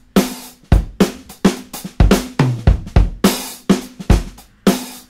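Background music: a steady drum-kit beat of kick, snare and cymbals, about two to three strokes a second.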